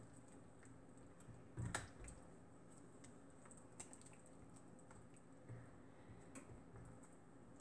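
Faint scrapes and soft taps of a spoon stirring thick sauce in a nonstick frying pan, with a louder knock about a second and a half in.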